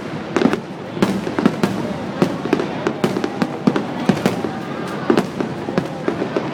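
Fireworks display going off: a rapid, irregular string of bangs and pops, several a second, over a continuous crackle.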